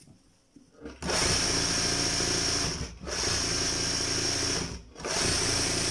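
Motor-driven embroidery sewing machine stitching: it starts about a second in and runs in three short stretches with two brief pauses, a steady hum with a high whine over it.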